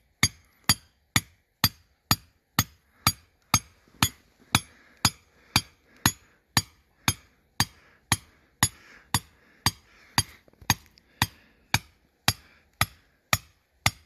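Hand hammer pounding a survey corner marker into rocky ground: sharp, evenly paced blows, about two a second, some thirty in all.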